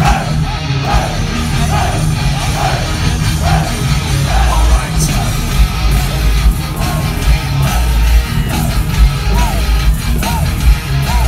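Heavy metal band playing live, heard from within the crowd: a distorted electric guitar riff repeating about every half second over drums and bass, with fans yelling.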